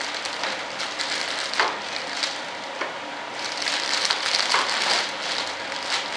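Plastic vacuum-bag film crinkling and crackling as it is handled over composite parts under vacuum, the crackles getting busier about halfway through. A small vacuum pump hums steadily underneath.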